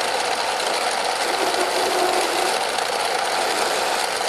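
Bernardo Profi 600 G metal lathe running under power, its chuck spinning while a grooving tool plunges into a metal workpiece to cut a thread relief groove. A loud, steady machine noise with the tool cutting and throwing chips.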